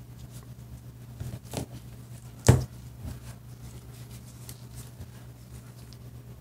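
Small handling noises as test leads, clips and a flat pouch cell are moved about by gloved hands, with a few soft knocks and one sharp click about two and a half seconds in. A steady low hum runs underneath.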